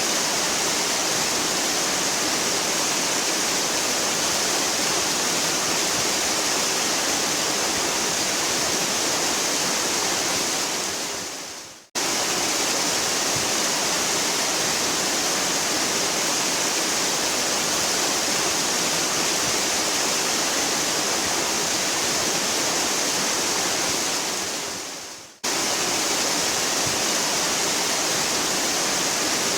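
Waterfall rushing: a steady, dense hiss of falling water, heaviest in the high range. Twice, about 12 and 25 seconds in, it fades down over about a second and then cuts straight back in at full level.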